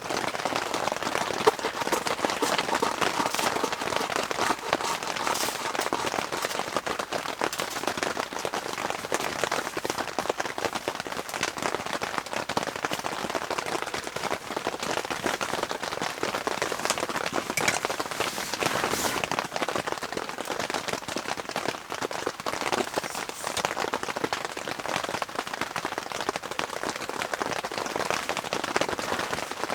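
Steady heavy rain, with many individual drops heard as sharp ticks over a constant hiss.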